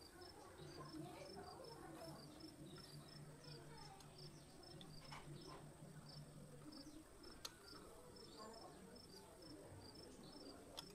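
Near silence, with faint, regular high-pitched chirping, about three chirps a second, and a light click about seven and a half seconds in.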